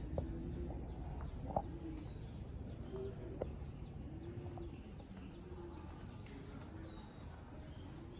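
A bird cooing: a low, arched call repeated about once a second, with small birds faintly chirping high above it. A few light knocks come in the first few seconds.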